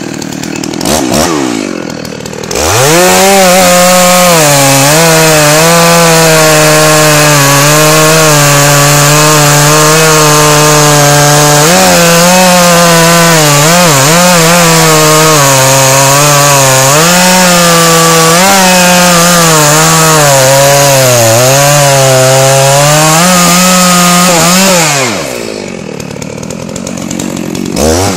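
Dolmar 7900 two-stroke chainsaw idling, then held at full throttle cutting into the trunk of a large, hard beech for about twenty seconds, its pitch sagging and recovering as the chain loads up in the wood. Near the end it drops back to idle, then revs up again.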